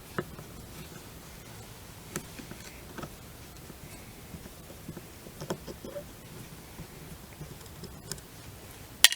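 Small scattered clicks and light handling of a tool on the rifle's metal action as a screw is worked loose and out, over a faint steady hiss, with one sharper click near the end.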